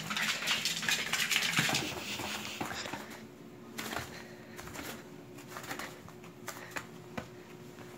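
A puppy scrambling and playing: a busy patter of claw clicks and scuffling for about the first three seconds, then quieter, scattered light clicks and taps as it settles down chewing a toy on a mat.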